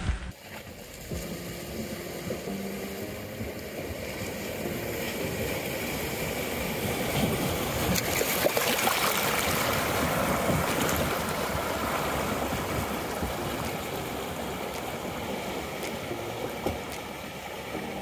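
Suzuki Grand Vitara driving through a shallow creek crossing: water rushing and splashing over the engine, loudest around the middle.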